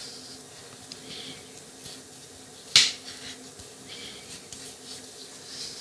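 Faint rustling and small clicks from handling the repaired charger cable, with one sharp click a little under three seconds in.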